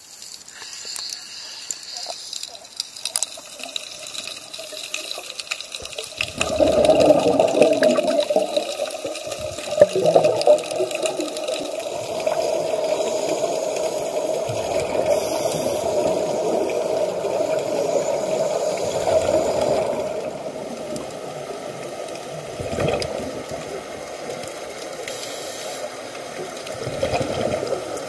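Water sloshing and splashing against a camera at the sea surface, then from about six seconds in the dense, muffled rushing noise of water around the submerged camera, with louder surges now and then.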